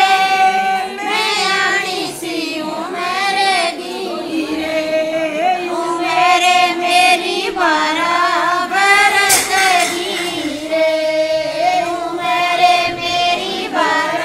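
High female voice singing a banna geet, a Hindi folk wedding song for the groom, in long held, wavering notes.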